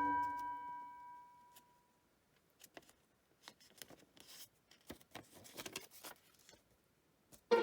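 A chime rings out and dies away over about the first second and a half, then faint scattered rustles and taps of origami paper being handled and folded.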